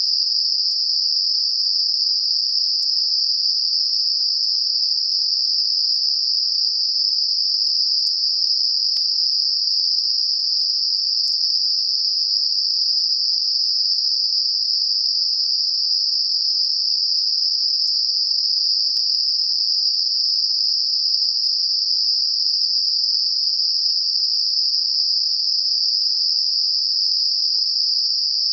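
Synthetic 5 kHz Gaussian narrow-band noise for tinnitus masking: a steady, high-pitched hiss of unchanging loudness, with no rhythm or breaks.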